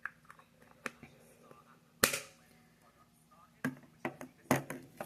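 Small hard plastic toy parts clicking and snapping as they are handled and pressed together: a few scattered clicks, one loud snap about two seconds in, then a quick run of clicks near the end.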